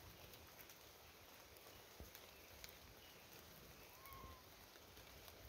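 Near silence: quiet outdoor ambience with a few faint scattered ticks and one brief, faint chirp about four seconds in.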